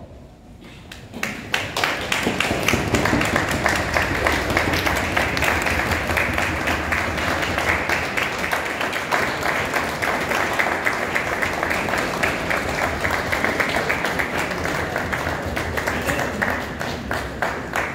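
Crowd applauding: many people clapping steadily. It swells in about a second in and tails off near the end.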